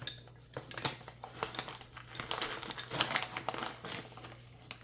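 Packaging crinkling while an ingredient is measured out, with light clicks and knocks of kitchen utensils against a bowl. The crinkling is densest in the middle of the stretch.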